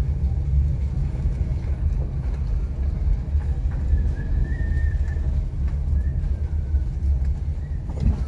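Street ambience: a steady low rumble, with a faint short high tone about four to five seconds in.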